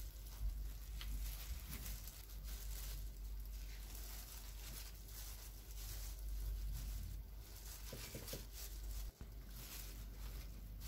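Faint crinkling of a disposable plastic glove and soft handling noises as cooked koobideh kebabs are pulled off their skewers and laid on a glass plate, over a low steady hum.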